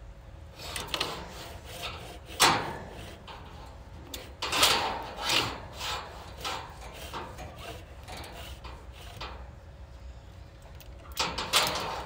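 Inspection camera head and push cable scraping and knocking along the inside of a rigid metal dryer vent duct as it is fed in. The sliding scrapes come in irregular bursts, with one sharp knock about two and a half seconds in.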